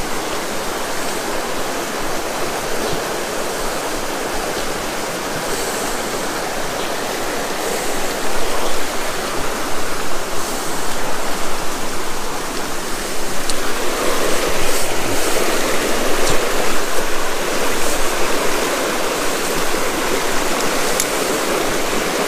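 Shallow mountain river flowing over rocks close by, a steady rush of water that gets louder about eight seconds in.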